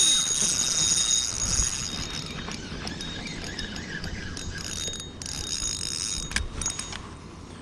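Spinning reel being cranked hard as a hooked bass is fought, its rotor and gears whirring with a steady high whine, loudest at the start. From about two seconds in come scattered clicks and rubbing.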